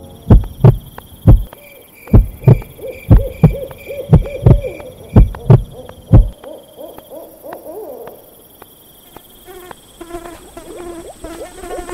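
Layered sound-effects soundscape: loud deep thumps, loosely in pairs like a heartbeat, for about the first six seconds, under short repeated owl hoots. Then come wavering calls and, near the end, rapid chirping calls, over a thin steady high tone.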